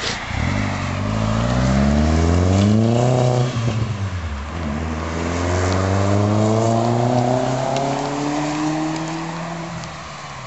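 Turbocharged 1.8-litre four-cylinder of a Mk4 VW GTI accelerating hard through two gears, with a rising engine note, one upshift about three and a half seconds in, and a second long pull. It exhausts through a Techtonics turboback with a Thrush glasspack in place of the muffler. The sound fades near the end.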